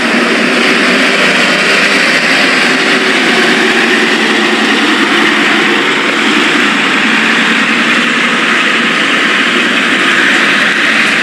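Road traffic at a roundabout: a city bus and cars running past, a steady mix of engine and road noise.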